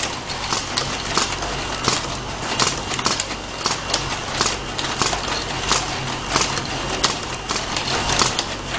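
Automatic bottle labeling machine running: a steady motor hum and conveyor whir, with sharp clacks about once or twice a second at uneven spacing.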